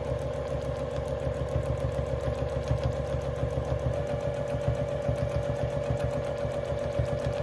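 Juki sewing machine running at a steady speed, its needle stitching rapidly with a steady motor hum. It is free-motion quilting with the feed dogs dropped.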